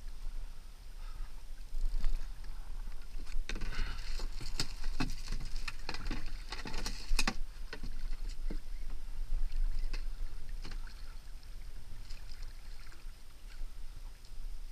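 Water lapping and splashing against a sit-on-top kayak's hull over a steady low rumble, with a cluster of sharp clicks and knocks from the rod, reel and paddle being handled between about four and seven seconds in.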